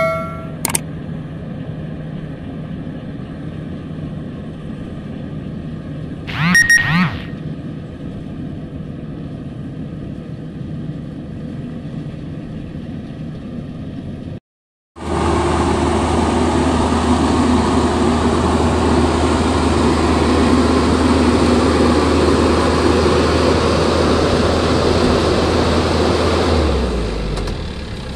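Maxxi Bimo 102L rice combine harvester engine running steadily. For the first half it is heard faintly from a distance, with a short chime about a third of the way in. From about halfway it is loud and close, with a steady low hum, and it eases off near the end.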